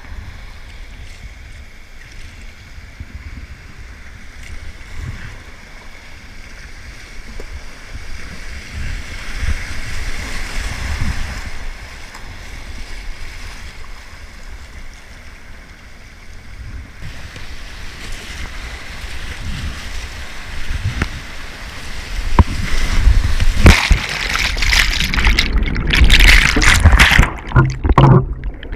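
Whitewater rapid rushing and splashing around a kayak, growing louder as the boat drops into the rapid. Near the end the kayak capsizes and the sound turns heavy and choppy, repeatedly going dull as the microphone dips underwater.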